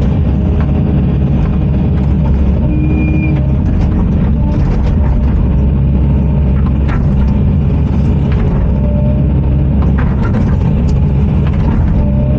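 Diesel engine of a heavy construction machine running steadily under load, with scattered knocks and clanks as it breaks up frozen ground.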